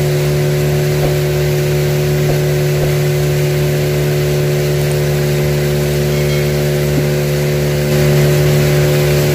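A small boat's engine running steadily as the boat moves along the water, a constant drone that gets a little louder about eight seconds in.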